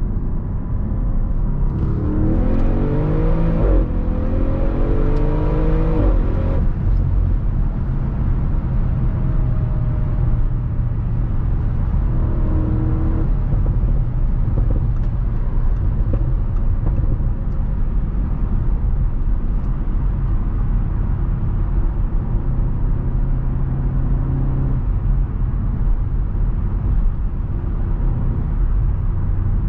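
2015 Audi RS6 Avant's twin-turbo V8 accelerating hard: the engine note rises, drops at an upshift about four seconds in, then climbs again until the throttle is released at about six and a half seconds. After that the car cruises with a steady low engine drone and road noise.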